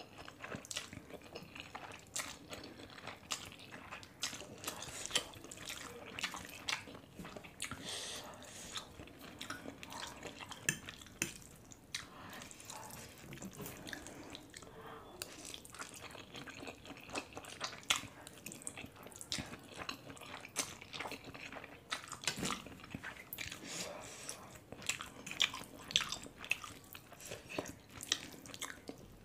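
Close-up mouth sounds of eating spicy instant noodles: wet chewing and slurping, with many short, sticky clicks and smacks coming irregularly.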